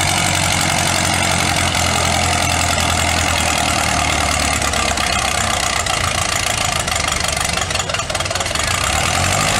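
A 1947 Minneapolis-Moline tractor's engine running steadily under heavy load as it pulls a weighted sled down the track.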